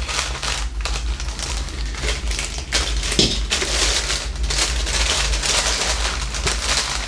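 Plastic packaging bag crinkling and rustling in irregular bursts as it is handled and pulled off a model airplane's tail parts.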